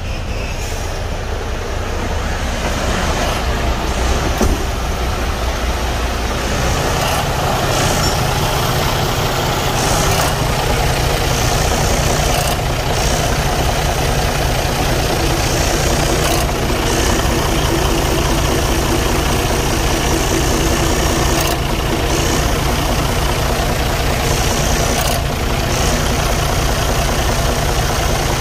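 Detroit DD15 inline-six diesel idling steadily, heard up close at the engine, the rumble getting fuller and deeper about six seconds in. This engine has blow-by coming out of the oil filler, caused by a cracked cylinder liner leaking coolant into the oil.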